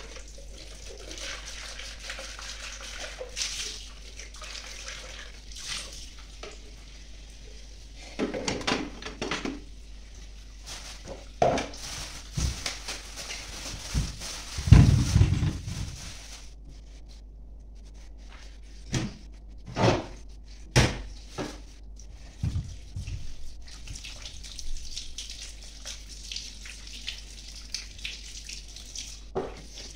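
Kitchen tap running into a sink while dishes are washed, with clinks and knocks of glasses, plastic bowls and steel pans being handled and set down. A heavy low thump about halfway through is the loudest sound; the running water fades during the clatter and returns near the end.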